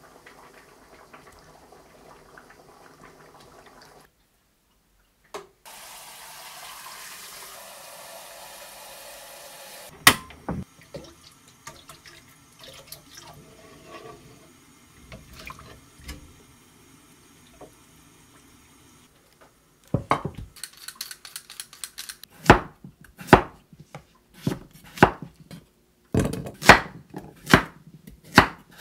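A few seconds of running water, then a wooden spoon stirring and knocking in a frying pan of water. From about twenty seconds in, a Chinese cleaver chops carrot on a camphor wood cutting board, sharp knocks about one to two a second that are the loudest sounds.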